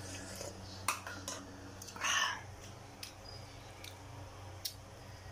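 Kitchenware being handled: a few light clicks, and a short clatter about two seconds in, over a steady low hum.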